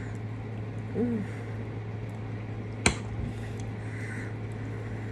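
A metal fork knocks once, sharply, against a ceramic dinner plate about three seconds in, over a steady low hum. A brief hummed voice sound comes about a second in.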